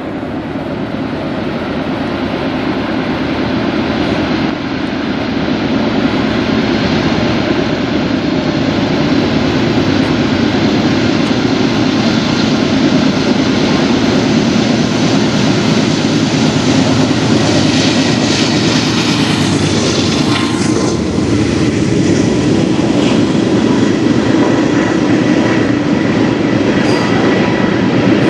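Diesel-hauled freight train approaching and passing: the locomotives' engines grow louder as they near and go by, then a steady rumble and clatter of autorack cars rolling past, with a thin ringing tone over it in the second half.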